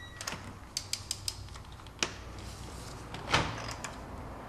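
Hand tools on a spark plug: a torque wrench and socket extension clicking and knocking against metal. There is a cluster of light clicks about a second in, a sharp click about two seconds in, and a louder rasp about three-quarters through.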